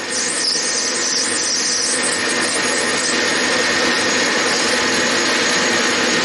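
Metal lathe running steadily with its spindle at speed, a cutting tool turning a small brass part held in the three-jaw chuck. The cut leaves a poor finish on the brass.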